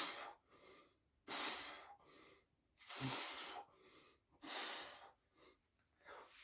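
A man breathing hard under strain: four loud breaths about a second and a half apart, with fainter ones between.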